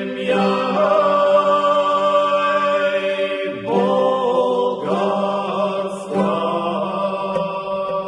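Background music: a voice chanting a slow melody over a steady low drone.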